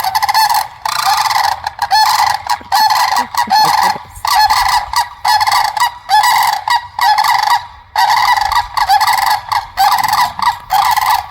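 A flock of geese honking loudly and repeatedly, the calls overlapping almost without a break: a racket of birds calling to one another.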